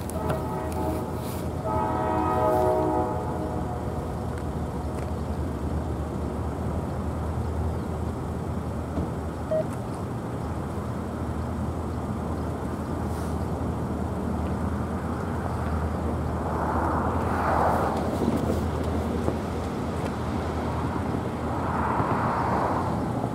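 Distant locomotive horn sounding a steady chord over the first three seconds, loudest about two seconds in, over a steady low rumble. Two brief swells of rushing noise come later.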